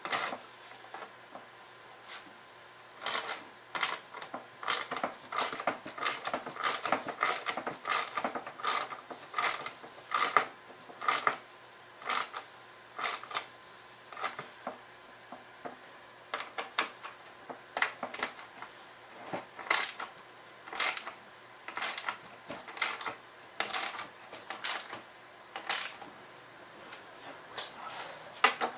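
Hand ratchet with a socket clicking in short runs of quick clicks, with pauses between, as screws are tightened by hand into a new backpack-blower frame until they are snug.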